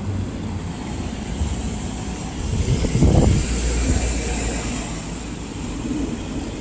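Road traffic on the adjacent street, with a vehicle passing and swelling loudest around the middle before fading.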